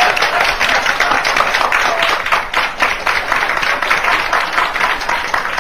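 Live audience clapping and applauding after a joke's punchline, with some laughter mixed in.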